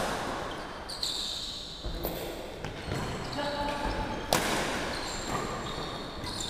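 Badminton rally: sharp smacks of rackets striking the shuttlecock, about a second in and again just past four seconds, with short high squeaks of shoes on the wooden court floor and voices in the hall.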